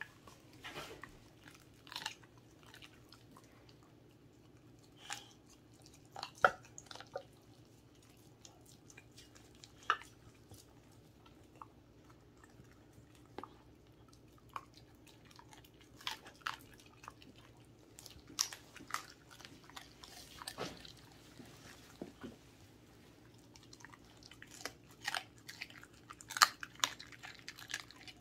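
Welsh corgi licking and biting at a whole raw chicken: scattered wet licks and short chewing clicks, coming thicker near the end as it starts to bite in.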